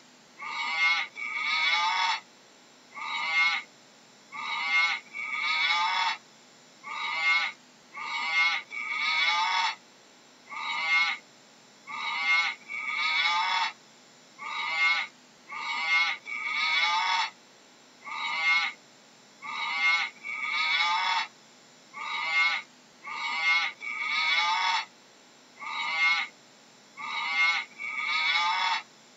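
A long series of short, pitched animal calls, each about half a second, repeating at a steady pace of roughly one a second, often two in quick succession, with silence between.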